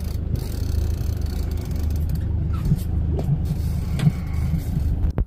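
Boat engine running steadily as a low, even drone, with a sharp click about four seconds in.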